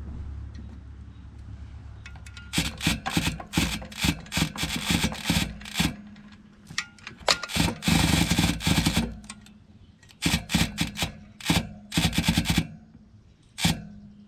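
Bicycle chain and drivetrain clicking and rattling in quick, uneven runs of metallic ticks as the chain is worked on the fat bike, with a denser clatter about halfway through.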